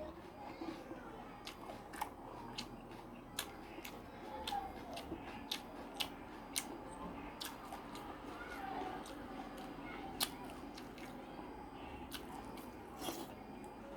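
Close-up chewing and eating sounds: irregular sharp clicks and smacks, about one or two a second, over a quiet background.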